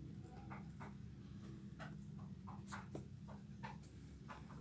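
Chickens pecking at feed with their beaks: faint, irregular sharp ticks, about three a second.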